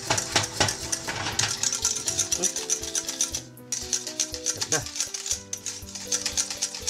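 Thick béchamel sauce being stirred hard in a stainless steel saucepan: a utensil scraping and clicking against the pan several times a second. Background music plays under it.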